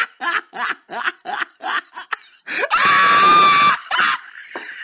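A person laughing in quick repeated bursts, about four a second, then a loud, high-pitched scream held steady for about a second, starting a little before three seconds in.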